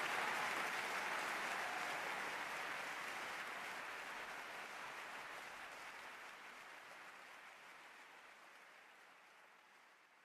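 Audience applause fading out steadily to silence.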